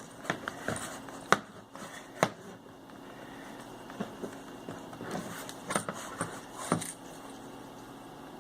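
Leather being hand-stitched with a stitching awl: the awl pushed through the shoe's leather upper and midsole and the thread pulled through and tensioned, with a few sharp, irregular clicks and taps among softer rustling.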